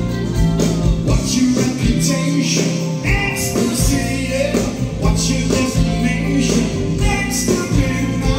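Live pop band playing: a male lead vocal over electric guitar, bass, keyboards and a steady drum beat, heard from the audience in a theatre.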